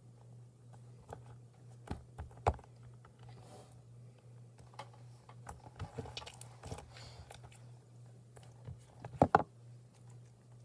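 Slime being squished and stretched by hand, giving scattered wet clicks and small pops, with a quick pair of louder pops near the end, over a low steady hum.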